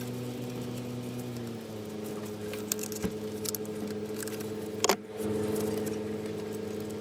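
Metal tools clinking and knocking against engine parts during work on a diesel engine bay, with one louder knock about five seconds in. Under it runs a steady mechanical hum that drops slightly in pitch a little over a second in.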